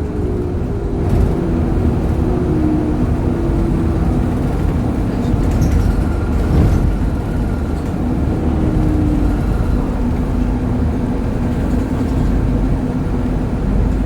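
City bus in motion, heard from inside the cabin: a steady engine and road rumble, with the engine note shifting up and down in pitch as the bus changes speed.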